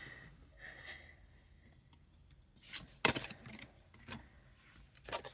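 Playing cards being handled and laid down: a few soft rustles and taps of cardstock, the loudest cluster about three seconds in and another near the end.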